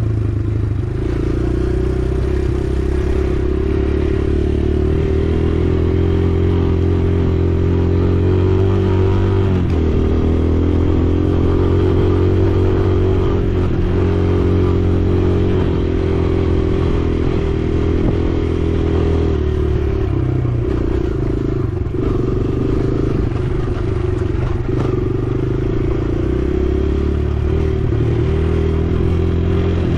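Kawasaki KLX140R L dirt bike's single-cylinder four-stroke engine running while being ridden. The engine note holds fairly steady, dipping briefly about ten seconds in and again around twenty seconds in.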